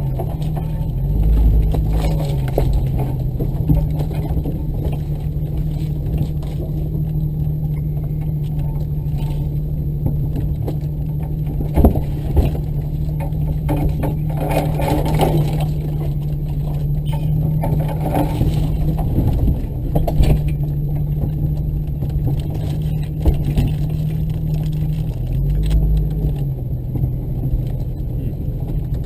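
A vehicle engine running at a steady pitch while driving off-road, with occasional knocks and rattles. The engine pitch shifts briefly about a second in and again near the end.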